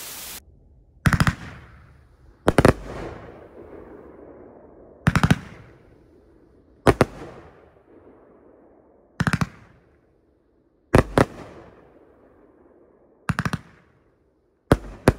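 A 500-gram, 20-shot RIAKEO Max Load #7 consumer fireworks cake firing shot after shot: about eight shots roughly every two seconds, each a quick cluster of sharp bangs with a fading tail. A short hiss comes at the very start.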